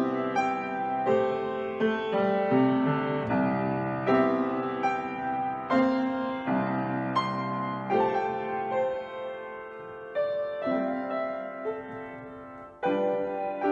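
Upright piano playing a slow worship chorus in full chords, struck about once a second. Near the end the sound dies away briefly before a new chord comes in.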